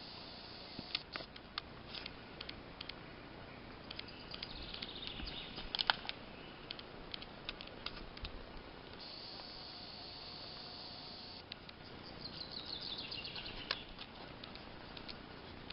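Spring forest ambience: a bird calls with a quick run of high notes falling in pitch near the end, over scattered sharp clicks and a steady high buzz lasting about two seconds in the middle.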